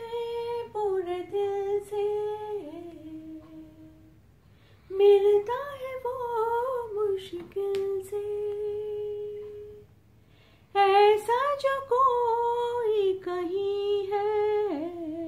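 A woman singing a slow melody unaccompanied, in three phrases with short pauses between them, each phrase ending on a long held note.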